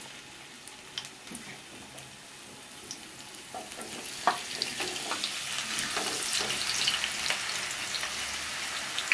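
Peeled potatoes sizzling as they fry in hot mustard oil. The sizzle swells about four seconds in as the rest of the potatoes are tipped in, with a few sharp knocks.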